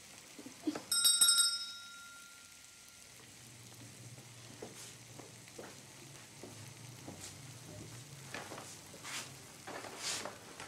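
A small shop door bell jingles with several quick strikes about a second in, each ringing on briefly, as customers come in. Faint steak sizzling in a frying pan and a few light knocks follow.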